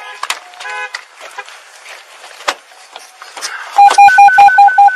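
Loud, rapid electronic beeping on a single tone, about five short beeps a second, starting near the end and running on for about two seconds. Scattered knocks and clicks of handling come before it.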